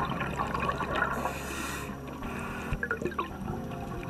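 Underwater water sound: streams of rising bubbles and a low rush of water, with scattered faint crackles and a short hissing rush about a second in.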